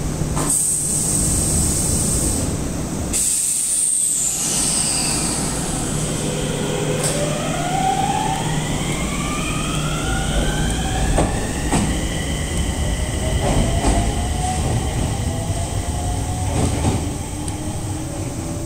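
Enshū Railway 2000-series electric train pulling away from the platform. About six seconds in, the VVVF inverter and traction motors start a whine of several tones rising together in pitch as it accelerates, levelling off by about twelve seconds, with a few wheel knocks over the rails.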